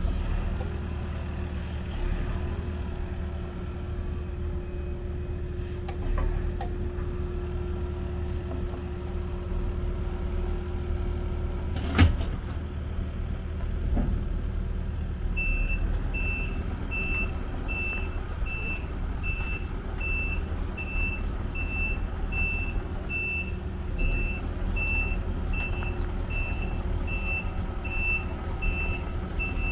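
2022 Takeuchi TB260 mini excavator's 47.6 hp Tier 4 diesel running steadily under work, with a steady whine through the first half and a sharp clunk about twelve seconds in. From about halfway on, a warning alarm beeps about every three-quarters of a second, typical of the machine's travel alarm.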